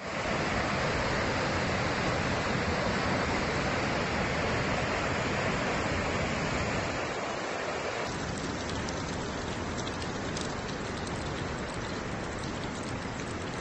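Muddy floodwater pouring over a waterfall in a steady rush. About eight seconds in the rushing drops to a quieter, thinner level.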